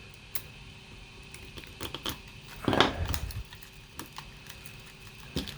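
3D-printed plastic parts clicking and knocking as support material is pried and broken free from a printed hinge. A handful of sharp clicks are scattered through, with a louder snap-like cluster about midway.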